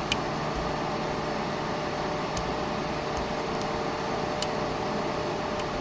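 Electric fan running with a steady whir, close to the microphone. A few faint, light clicks sound over it, about three in all.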